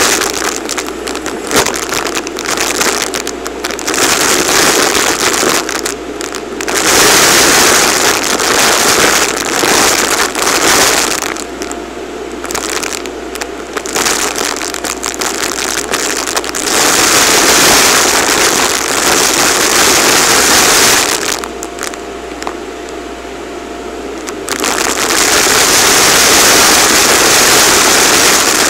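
Vacuum cleaner running through its bare hose, sucking up a pile of sequins, glitter and confetti, with the small bits crackling and rattling up the hose. The suction noise swells and drops several times as the nozzle moves in and out of the pile; in two quieter stretches a steady whistling tone comes through.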